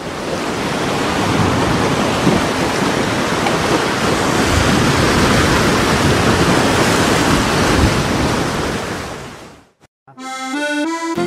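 Heavy surf of a rough sea, waves breaking on a rocky shore in a steady rushing roar that fades out near the end. Just after, accordion music starts.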